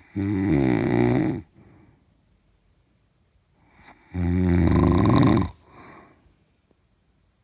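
A person snoring loudly: two long, pitched snores about four seconds apart, each lasting over a second and followed by a softer breath.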